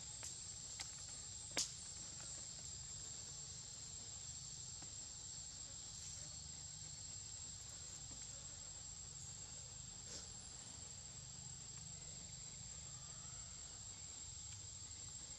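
Insects trilling steadily on one high pitch over a faint forest hiss, with a few short clicks, the sharpest about a second and a half in.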